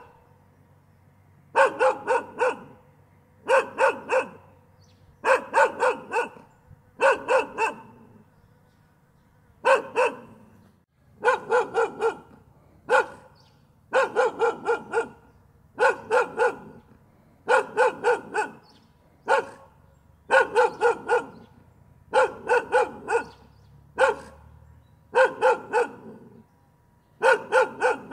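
A dog barking in quick runs of three or four barks, one run about every two seconds, with short quiet gaps between runs.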